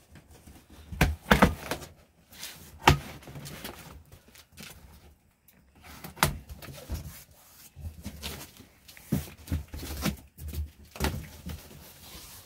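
Large cardboard box being cut open and unfolded by hand: irregular knocks and thuds of stiff cardboard flaps, with scraping and rustling of cardboard between them.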